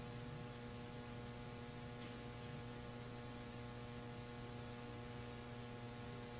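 Steady electrical mains hum with a faint hiss, from an open microphone and sound system.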